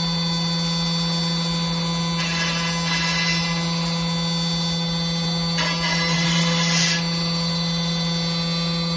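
CNC router spindle driving an HSD side-drilling angle head, running at a steady pitched hum with higher overtones. Two short stretches of added rushing noise come about two and six seconds in.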